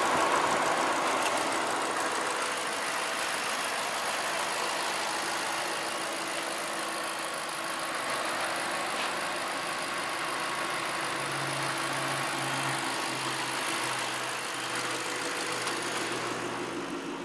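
2012 Ford Shelby GT500's supercharged 5.4-litre V8 idling steadily, with a low exhaust rumble.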